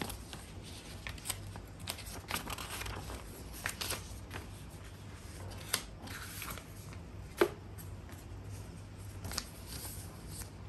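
Objects being handled: scattered light clicks, taps and rustles, with one sharper knock about seven seconds in.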